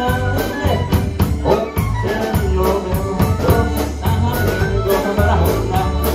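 Live dance band playing, with drum kit and electric guitar over a steady, even beat.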